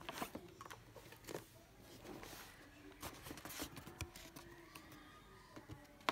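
Plastic toy and cardboard packaging being handled: irregular rustling and light clicks, with one sharper click near the end.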